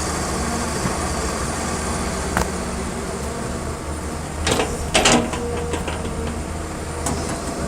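Excavator diesel engine running steadily, with a sharp click about two and a half seconds in and two loud, short clanks about four and a half and five seconds in.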